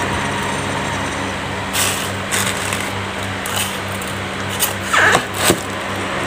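Electric fan running with a steady, evenly pulsing hum. A few short crinkles and knocks from a paper chicken bucket and plastic bag being handled come through it, the loudest two a little after the middle.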